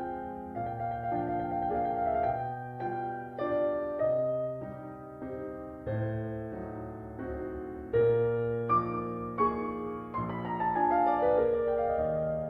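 Slow piano music: single notes and chords struck one after another, with a quick falling run of notes near the end.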